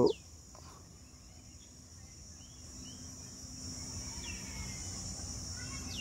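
Insects droning steadily at a high pitch, with a faint low rumble building from about two seconds in.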